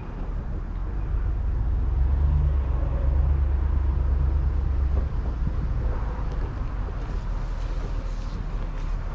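Truck running with a low, steady rumble that swells about two seconds in and eases a little after five seconds.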